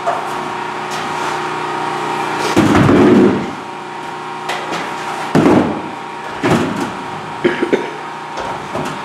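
A stepladder being handled and set down on a wooden floor: several knocks and clunks, the loudest about three seconds in, and smaller ones later. A steady hum runs underneath.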